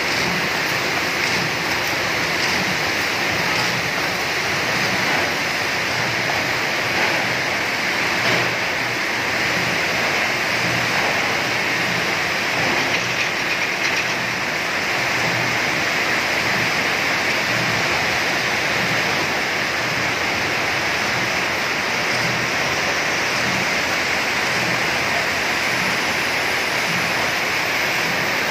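Hexagonal wire mesh machine running at a steady production pace: a dense, even mechanical rush of noise with a faint low pulsing rhythm underneath.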